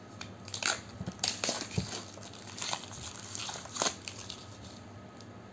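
Packaging of a camera box being opened and handled: irregular crinkles and sharp clicks, busiest for the first four seconds and then dying down.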